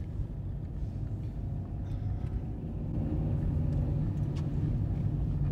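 Car engine and road noise heard from inside the cabin while driving: a steady low rumble that grows a little louder about three seconds in.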